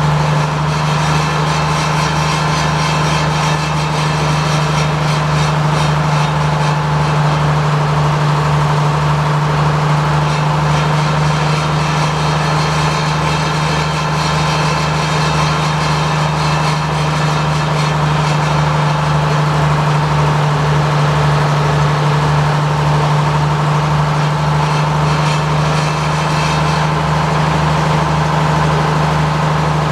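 The sawmill's power engine idling steadily in neutral, with the clutch disengaged and the mill out of gear, ahead of shutdown.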